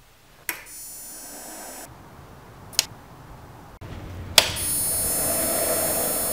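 Sharp switch-like clicks, about half a second in, near three seconds and near four and a half seconds. After the first and the last click, a bi-xenon HID projector's ballast sets up a high-pitched electrical whine with hiss as the lamp is struck. The last whine is louder and runs on steadily.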